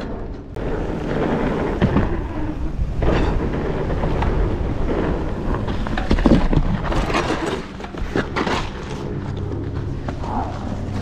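Mountain bike ridden over rough trail: rumble and rattle, wind on the microphone, and several sharp knocks about 2, 3 and 6 seconds in.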